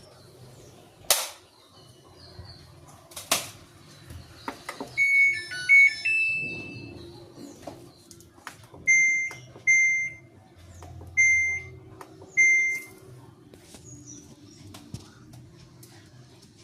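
Top-load washing machine control panel: two sharp clicks, then a short electronic power-on tune of stepped beeps about five seconds in, followed by four single button beeps as the Tub Clean cycle is selected.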